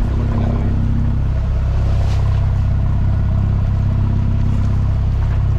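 A Rival 34 sailing yacht's inboard engine running steadily at a constant low drone as the boat motors into a rough sea. Wind and rushing water sound over it.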